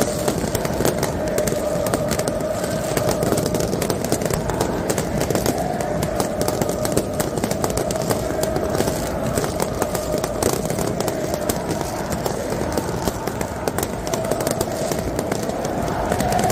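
Packed stadium crowd of football supporters singing a chant together, with rapid crackling and popping of fireworks and flares throughout.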